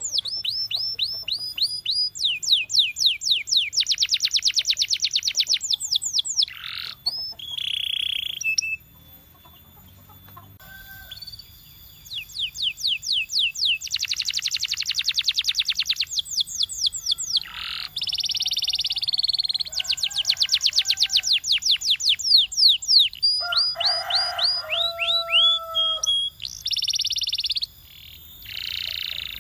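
Domestic canary singing: fast trills of rapidly repeated high notes, one rolling phrase after another, with a short lull about nine seconds in.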